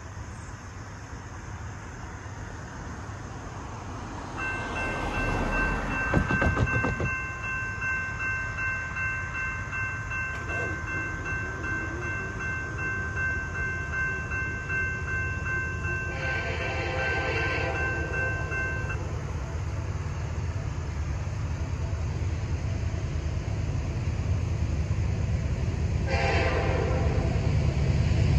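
A General Signals electronic crossing bell starts about four seconds in, ringing with rapid, even strokes, and stops shortly after the gates are down. The approaching freight's lead SD70ACe sounds its K5LLA air horn in two long blasts, about two-thirds of the way through and again near the end. Under it all, the train's low rumble grows louder, and a brief rushing noise comes as the bell starts.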